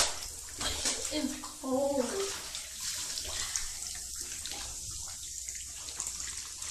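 Cola-filled bath water sloshing and splashing as feet and hands move in the tub, with a brief voice about a second in.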